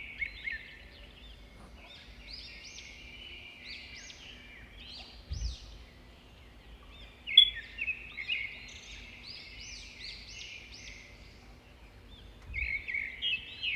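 Small birds chirping in quick runs of short, high, rising-and-falling notes, with a couple of soft low knocks.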